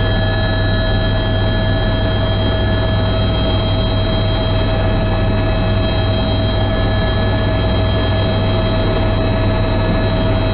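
Cabin noise of a Eurocopter EC130 helicopter in flight: its Turbomeca Arriel 2B1 turboshaft and rotors running steadily, a loud low hum with several steady high-pitched whines over it, heard from inside the cabin.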